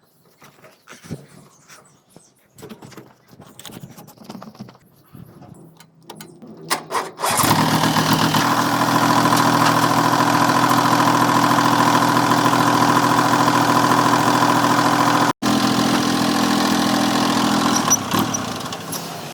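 Faint clicks and handling noises, then about seven seconds in a tractor engine starts and settles into a steady idle with a thin whine over it. It cuts out for an instant near the end of its run.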